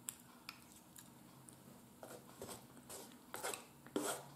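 Quiet eating sounds: chewing and mouth smacks, joined in the second half by short scrapes and clicks of a fork on the plate.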